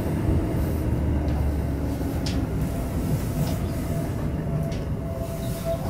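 Commuter electric train running slowly through a station, heard from inside the front car: a steady low motor hum and wheels on rail, with a few faint clicks.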